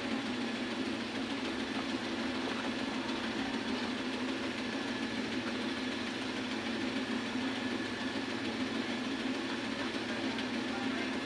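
A steady machine hum, unchanging throughout with no clear beat.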